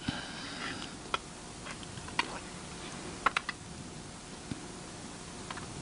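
Metal spoon clinking against a plate as someone eats: a few separate sharp clinks, two of them close together about three seconds in.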